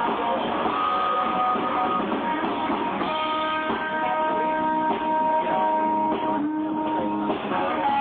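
Live rock band playing, with guitar notes held and strummed to the fore. The recording is thin and muffled, with little bass and no top end.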